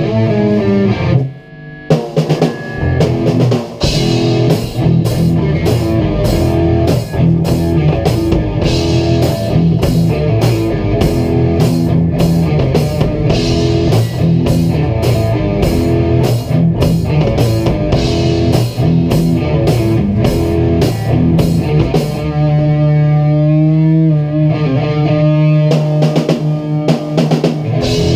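Rock band jamming live on drum kit and electric guitars, all playing loud together. There is a short break about a second in. Near the end the drums drop out for a few seconds while the guitars hold wavering notes, then the drums come back in.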